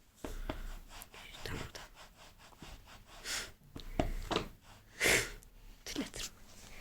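Cats play-fighting: scuffling and light knocks, with two short breathy bursts about three and five seconds in.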